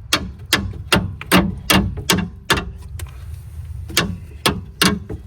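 Steady series of sharp hammer blows on metal, about two to three a second, with a short ringing after each; they pause for about a second and a half in the middle, then resume. The blows are knocking the second remaining piece of the old, seized stabilizer link loose.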